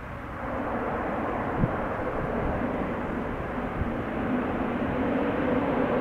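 ATR 72-600's twin Pratt & Whitney PW127M turboprops running as the airliner rolls along the runway toward the listener: a steady propeller drone that steps up in level about half a second in and keeps growing louder. A short sharp knock sounds about a second and a half in.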